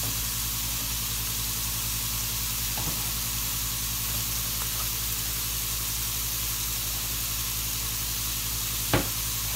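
Filet mignon steaks with butter pats and sliced mushrooms sizzling steadily in a hot cast iron skillet, over a low steady hum. There is one sharp click near the end.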